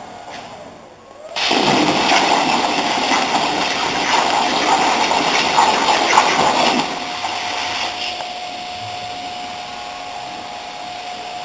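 Plasma cutter torch on a CNC plasma table firing: a loud even hiss starts suddenly about a second and a half in, runs about five seconds, then drops to a softer hiss. A steady high whine is heard before the loud hiss and again once it softens.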